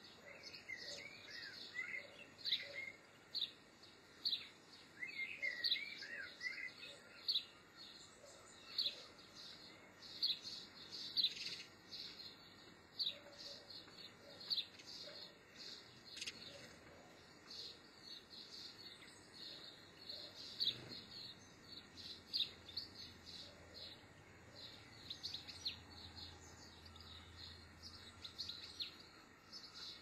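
Small garden birds calling and singing: a run of short, high chirps, about one or two a second, with a lower warbling phrase near the start and again about five seconds in.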